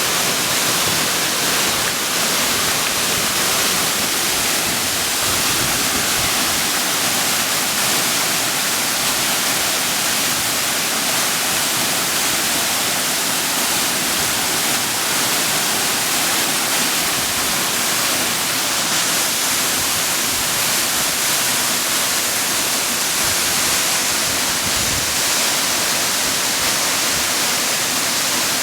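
Waterfall pouring, a steady rushing roar of falling water.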